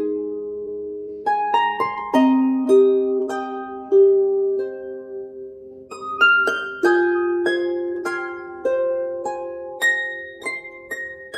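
Background music: a slow melody of plucked notes that ring out and fade, harp-like in sound.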